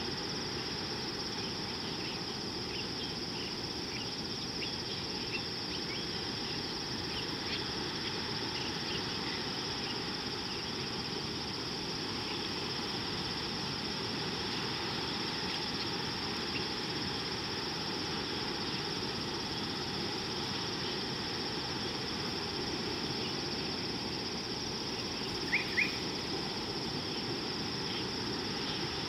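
Steady, high-pitched insect drone over a low, even outdoor noise, with faint scattered chirps and two quick, louder bird chirps near the end.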